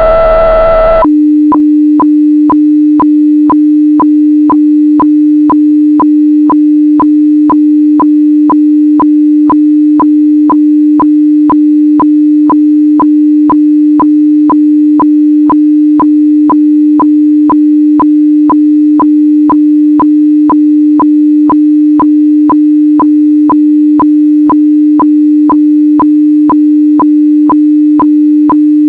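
HF radiofax (weather fax) transmission heard over a radio receiver. A harsh buzzing tone cuts off about a second in. Then comes a steady low tone with a sharp tick about twice a second: the phasing signal that lines up the receiving fax recorder before the picture is sent.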